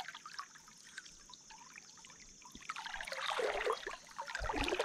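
Water splashing and trickling, faint at first and picking up about three seconds in: fast floodwater moving around a wader's legs in the current.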